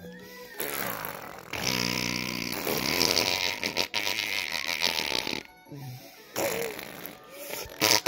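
A baby making raspy tongue and lip noises, blowing raspberries: one long buzzing run of several seconds, then a few shorter, softer ones.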